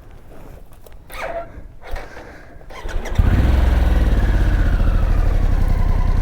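Harley-Davidson Pan America's V-twin engine starting about three seconds in, then running steadily at idle with a fast low pulse. Faint scuffing and handling noises come before it.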